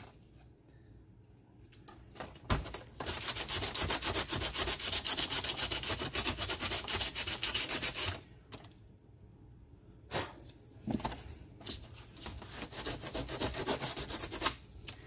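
Coarse 36-grit sandpaper rubbed by hand in rapid back-and-forth strokes across the back of a piece of aluminum license plate, roughing up the metal so epoxy will grip. The scraping starts after a quiet moment and a knock, pauses with a few clicks, then resumes more lightly near the end.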